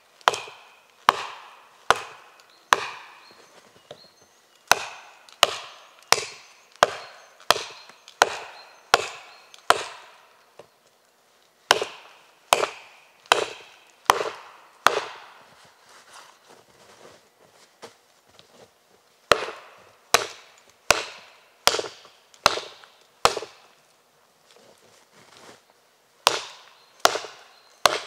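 Gränsfors Bruk Wildlife hatchet chopping into a tree trunk: sharp wooden chops about three every two seconds, in runs broken by short pauses that hold a few lighter strikes.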